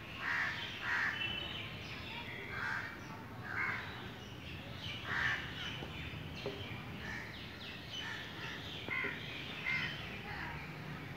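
Crows cawing repeatedly, short harsh calls every second or two.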